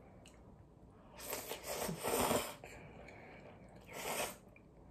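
Close-up mouth sounds of someone slurping cold spicy noodles (bibim-myeon): a longer slurp a little over a second in, then a short second slurp near the end.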